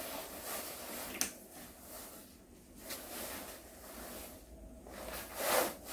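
Rustling of a nylon padded long coat as the wearer moves in it and handles its front, with a single sharp click about a second in.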